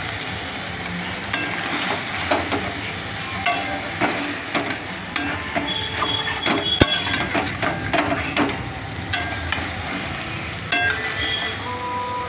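Vegetable-and-fish mixture sizzling in a metal kadai over a high gas flame as the last of its water cooks off. A spatula scrapes and knocks against the pan while it is stirred, giving frequent short clicks.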